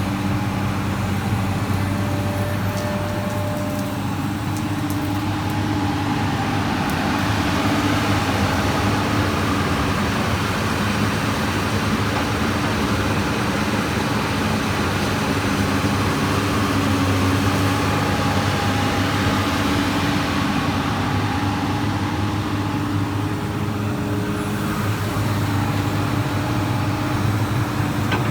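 Komatsu PC200 excavator's diesel engine running steadily under working load while digging, the tone holding level with a broader rush of noise swelling and easing in the middle.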